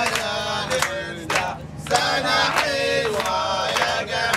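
A group of people singing together in a loud chant, punctuated by sharp beats at a fairly steady pace.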